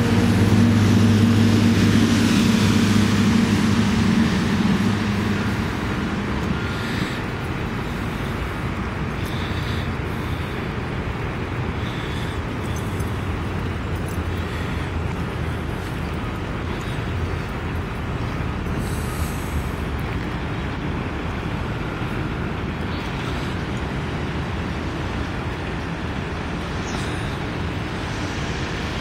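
Steady hum of an engine, loudest for the first few seconds and then fading away, over a constant low outdoor rumble.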